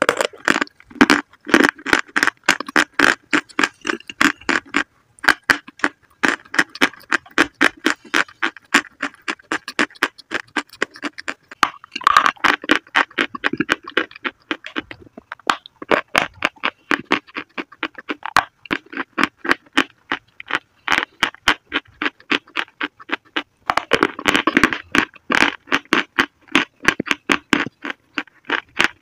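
Close-miked biting and chewing of dry, crumbly white chalk-like blocks: fast, sharp crunches, several a second, with a couple of brief pauses.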